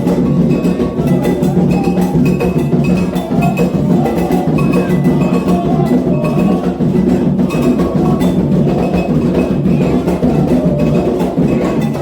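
Candomblé ritual drumming: atabaque hand drums played continuously under a metal agogô bell striking a repeating ringing pattern.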